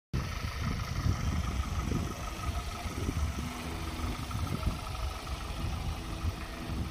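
Wind buffeting the microphone in gusts, a low uneven rumble, with the faint steady hum of an engine running underneath.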